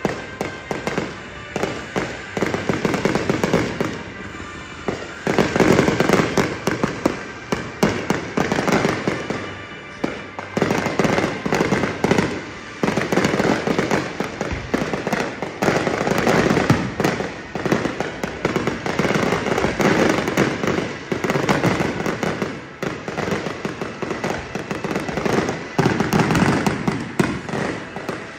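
Aerial fireworks display: many shell bursts and crackling reports in quick succession, with brief lulls about four and ten seconds in.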